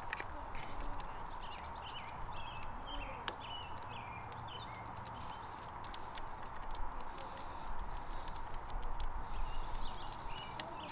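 A hand-held Torx driver clicks and taps against the metal screws of a motorcycle's handlebar brake lever housing as the screws are worked loose, the clicks coming thicker in the second half. Small birds chirp in the background.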